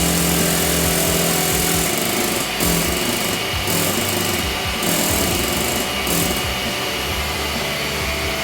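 A power tool running and working against a surface, with pauses in its higher hiss, over background music.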